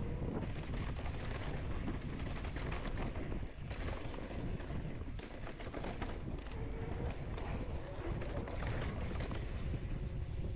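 Mountain bike rolling fast down a dirt singletrack: wind rumbling on the microphone, with the tyres on dirt and the bike's chain and frame rattling over the bumps.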